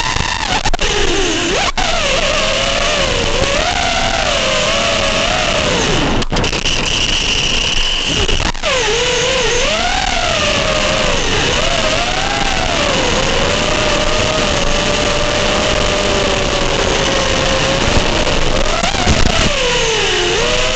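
FPV quadcopter's motors and propellers whining, the pitch rising and falling continuously with the throttle, over a steady hiss, with a few brief dropouts in the recorded audio.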